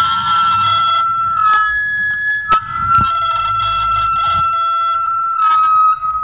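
Handmade metal noise box with coil springs and bolts, played by hand: the springs and bolts are plucked and scraped, giving a held metallic ringing tone with several higher ringing tones over it. There are sharp clicks about two and a half and three seconds in.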